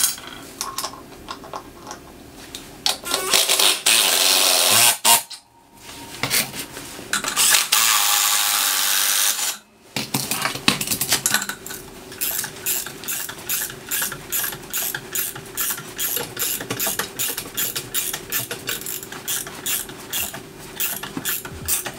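Ratchet wrench clicking in a fast, even run as it tightens a nut down onto a threaded-rod anchor bolt, from about halfway on. Earlier come a few knocks and two loud stretches of steady rushing noise, each about two seconds long.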